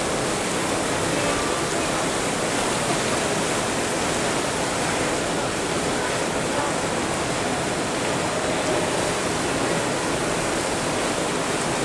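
Water pouring and splashing steadily from the overhead spouts of a children's splash pool into the shallow water below.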